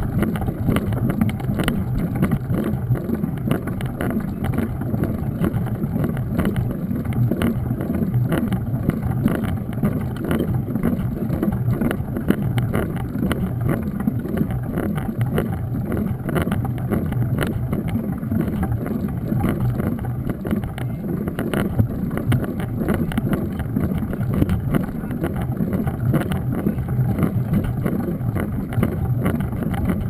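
Mountain bike rolling over rough, wet asphalt, heard from a bike-mounted camera: a steady rumble of the knobby tyres with a constant run of small knocks and rattles from the bumps, and some wind on the microphone.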